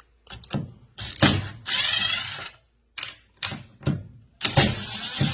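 Door strike-plate hardware being worked with a ratcheting driver: a string of short knocks and clicks, then two longer ratcheting runs, the first about two seconds in and the second starting about four and a half seconds in.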